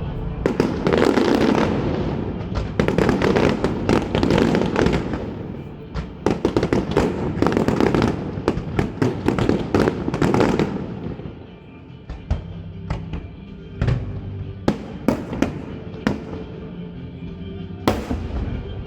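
Aerial fireworks going off: a dense run of rapid bangs and crackles for about ten seconds, then fewer, separate bangs spaced out over the rest of the time.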